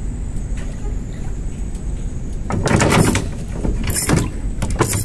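A steady low rumble, and from about two and a half seconds in a run of loud scraping and rustling on the boat as a man reaches over to the rods.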